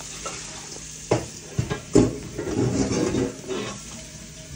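Cut jackfruit seed pieces being stirred and scooped by hand in a plastic tub, knocking and rattling against each other and the container. A few sharp knocks come about one and two seconds in, then a second or so of dense rattling.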